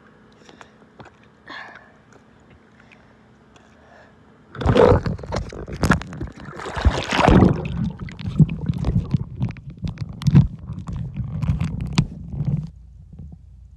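Pool water splashing and sloshing over a phone's microphone, loud and irregular with many sharp knocks, starting about four and a half seconds in; near the end it turns to a dull low rumble as the phone goes under water.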